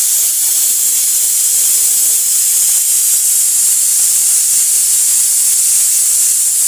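Pressure cooker on a gas stove hissing steadily as steam escapes from its vent.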